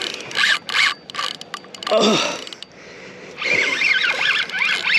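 Large Penn Spinfisher VI 8500 spinning reel working under the strain of a hooked bull shark: irregular bursts of gear and drag ratcheting and whirring, the longest near the end.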